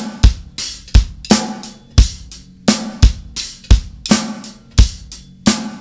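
Acoustic drum kit playing a steady punk-rock beat with accents: bass drum and snare alternating under an open, slightly trashy hi-hat, roughly three loud hits a second.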